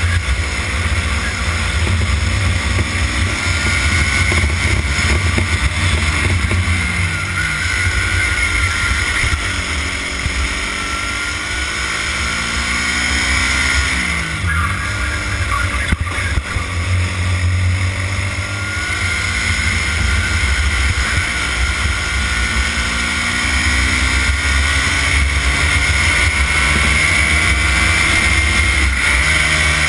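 Racing kart engine at race pace, its pitch climbing on the straights and falling as it slows for corners, twice dropping sharply and climbing back. A heavy low rumble runs underneath.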